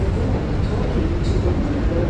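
Escalator running: a steady low mechanical rumble with no let-up.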